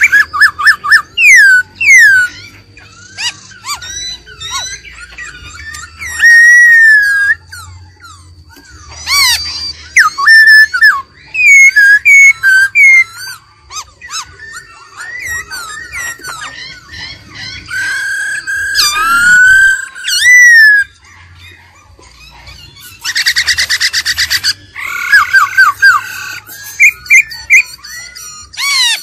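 Black-throated laughingthrush singing: loud, varied whistled phrases with rising and falling glides. Late on it gives a fast rattling run of notes.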